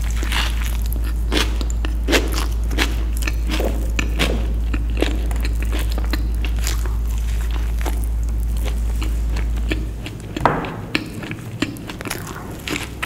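Close-miked chewing of a bite of veg burger, with a short mouth sound about twice a second. Under it runs a steady low hum, the loudest thing, which cuts off about ten seconds in.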